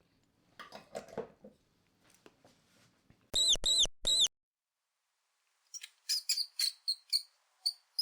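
Mouse squeak sound effects: a faint nibbling rustle about a second in, then three loud high squeaks in quick succession, each rising and falling in pitch. After a silent gap comes a rapid run of short, high squeaks near the end.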